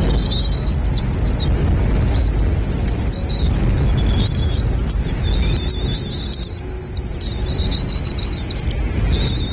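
A bird calling again and again: high, drawn-out calls, each under a second, coming about once a second, over a steady low rumble.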